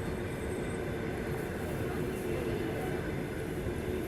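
Steady seaside background noise: an even low rumble with a faint steady hum underneath.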